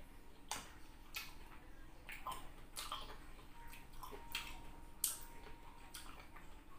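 Close-miked mouth sounds of eating juicy rambutan flesh: irregular wet smacks, sucking and chewing clicks, about two a second.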